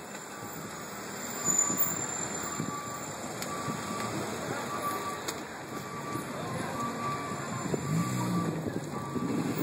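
Street traffic noise along a queue of cars waiting for gas, engines running, with a faint short beep repeating about once a second.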